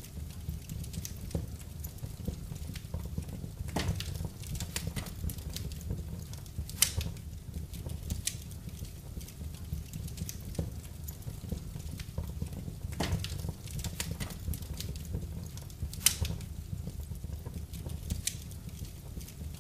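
Wood fire burning in a fireplace: a steady low rumble of the flames with irregular crackles and pops, the sharpest about 7 and 16 seconds in.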